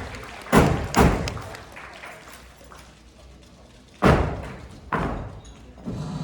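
Four heavy thuds, two close together about half a second and a second in and two more about four and five seconds in, each dying away with an echo.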